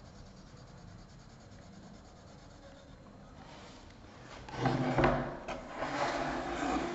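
Wooden drawing board being slid and turned on a tabletop: a rough scraping rub of wood on the surface with a few knocks, starting about four and a half seconds in and lasting a couple of seconds.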